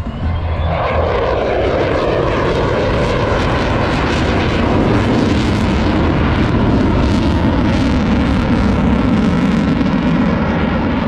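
Jet noise of an F-35 Lightning II, its single F135 afterburning turbofan, flying past. The main pitch falls steadily from high to low over the first several seconds, then holds low and loud.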